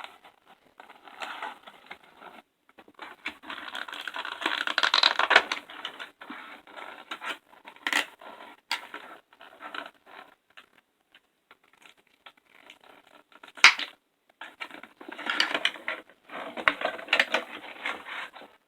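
Toy figure's packaging being handled and opened by hand: crinkling, scratching and tearing of plastic and cardboard in irregular bursts, with a few sharp clicks, the loudest about fourteen seconds in.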